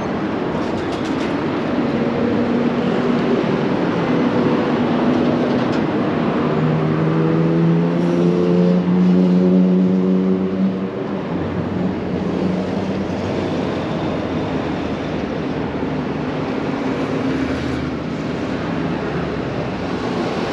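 City road traffic going by: a steady rush of passing vehicles, with a low engine hum that builds and is loudest a little before halfway through, then eases off.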